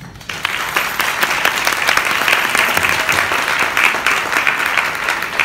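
A roomful of people applauding: dense, steady hand clapping that starts just after the beginning.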